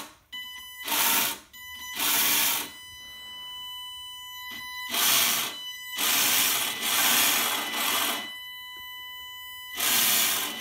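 WLtoys K696 RC car's electric motor spinning up in five throttle bursts, each a whirring rush, the fourth lasting about two seconds. Between the bursts the motor gives a steady high-pitched whine with overtones.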